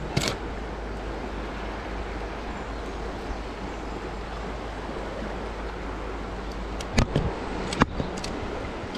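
Fast river rushing steadily, with a few sharp knocks as the wooden line frame is handled: one just after the start and two around seven to eight seconds in.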